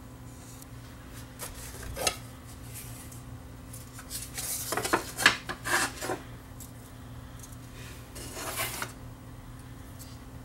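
Hands handling an opened plastic 8-track tape cartridge and its loose tape: a single click about two seconds in, a flurry of scraping clicks and rubs from about four to six seconds in, and a shorter rub near the end.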